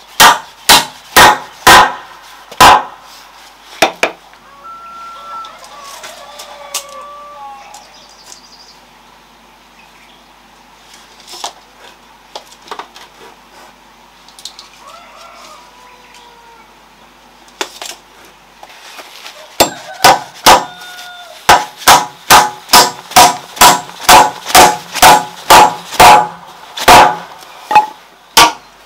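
Hammer striking a wood chisel cut into a wooden post: a handful of sharp blows at the start, then a fast even run of about two to three blows a second from about twenty seconds in. In the quieter stretch between, chickens cluck.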